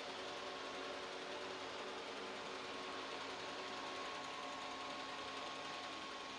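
Robot vacuum cleaner running: a steady whir of its fan and motors with a few steady hums, whose pitches shift about four seconds in.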